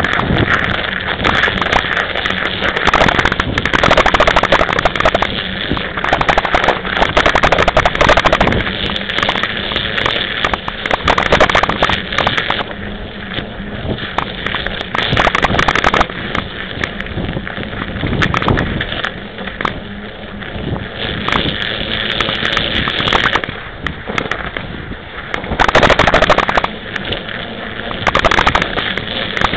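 26-inch mountain bike's tyres crunching through snow while riding, a continuous crackling crunch full of sharp clicks and knocks as the bike jolts over the bumps, growing louder and easing off in waves with the pace.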